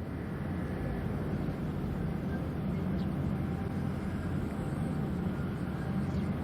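Steady low drone of a harbour tugboat's diesel engines running, heavy in the low end with a few faint steady tones above it.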